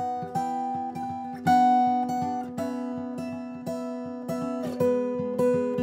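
Background music: an acoustic guitar strumming steady, regular chords in an instrumental stretch of a folk-pop song, with no singing.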